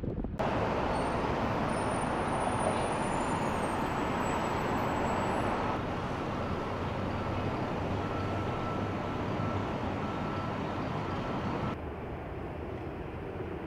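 Steady road-traffic noise of cars passing on a terminal roadway, a continuous rumble and hiss. The sound steps down abruptly about six seconds in and again near the end, where it becomes quieter.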